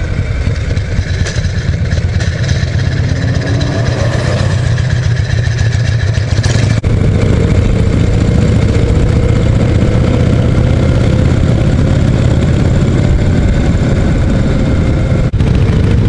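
Harley-Davidson Shovelhead V-twin engine running steadily under way. The sound jumps abruptly about seven seconds in and again near the end, where the footage is cut.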